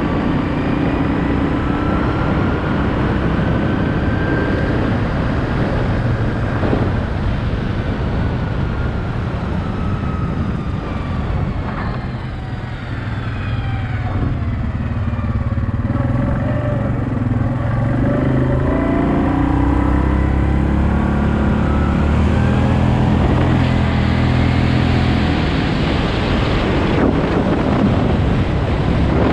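Yamaha Kodiak 700 ATV's single-cylinder four-stroke engine running while riding, its pitch rising and falling as the throttle is opened and eased off.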